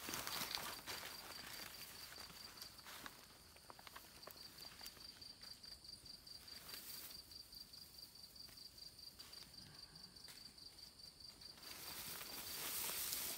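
Forest ambience: an insect trills steadily in a high, evenly pulsing tone, with scattered ticks. A louder hiss swells near the start and again near the end.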